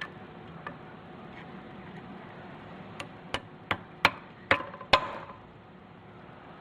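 Six sharp hammer taps, about two and a half a second and growing louder, driving a dowel pin into a Tremec TKO 600 transmission's shifter housing; the last tap rings briefly. A few faint clicks come before them.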